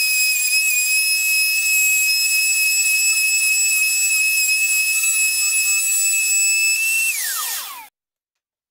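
Trim router in a router table running at full speed with a steady high-pitched whine while a plywood disc is turned against the bit on a circle-cutting jig. About seven seconds in the router is switched off and the whine falls steeply in pitch as the motor spins down, then cuts off suddenly.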